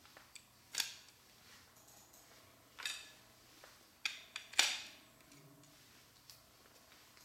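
Hard plastic construction-kit pieces clicking and knocking as they are handled and fitted together: four sharp clicks, one about a second in, one near three seconds, and two close together around four seconds in, with fainter ticks between.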